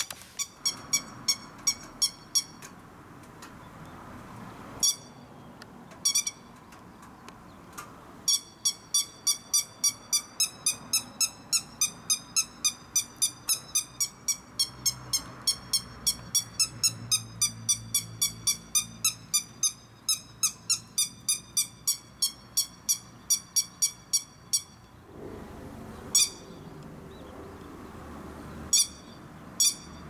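Grey-headed lapwing giving loud, sharp, high alarm calls. There are a few short runs at first, then an unbroken series of about three calls a second for some sixteen seconds, and a few single calls near the end. This insistent calling is the alarm a lapwing gives when someone is close to its nest or chicks.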